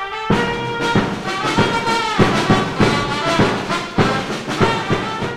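Title-sequence theme music: sustained chords punctuated by repeated percussive hits, fading out at the very end.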